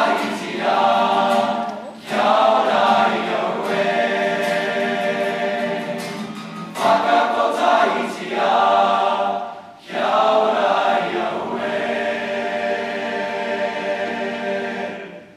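Boys' choir singing a Māori song in full voice, phrase by phrase with short breaks between the phrases. The final chord fades away near the end.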